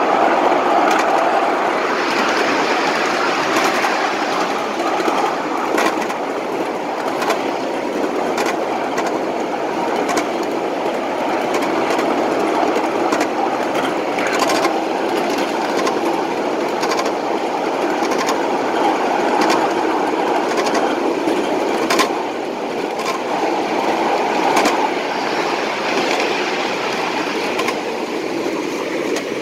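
Ride-on scale model train of empty coal hoppers rolling along its track, a steady running rumble with irregular sharp clicks as the wheels pass over rail joints.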